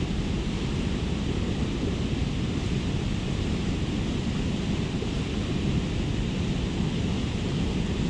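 Steady rushing noise, heaviest in the low end and with no distinct events: wind buffeting the microphone.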